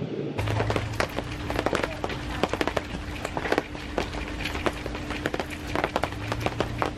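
Rain dripping, heavy drops tapping irregularly as they land close by over a soft hiss, with a faint steady hum underneath.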